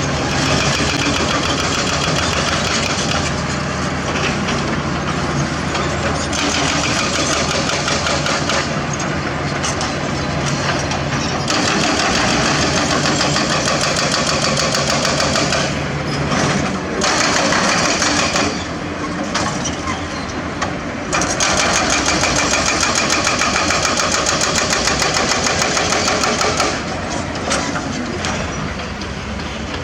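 Diesel engines of heavy earthmoving machines (excavators, bulldozers, dump trucks) running and working under load. The engine note and loudness shift several times as the machines change effort.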